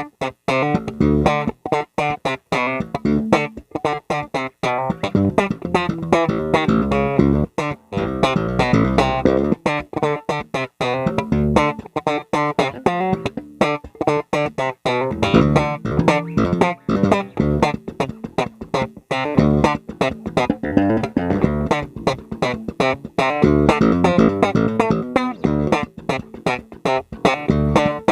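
Epiphone Thunderbird electric bass on its bridge pickup alone, playing a busy line of quick plucked notes with brief stops between phrases.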